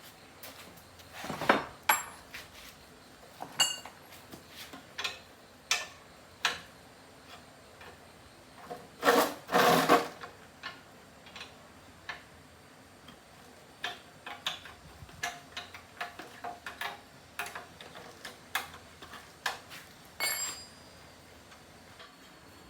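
Intermittent clinks and knocks of metal tools and parts being handled, a few with a brief metallic ring. Two longer scraping sounds, about a second and a half in and around nine to ten seconds in, are the loudest.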